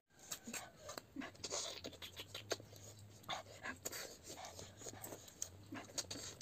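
Close-up eating sounds of cooked snails being sucked from their shells: many short sucking slurps, lip smacks and clicks of shells.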